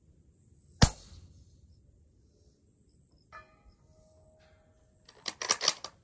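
Outro logo sound effect: a sharp hit that rings out about a second in, a faint chime-like tone in the middle, then a quick run of four or five loud sharp clicks near the end.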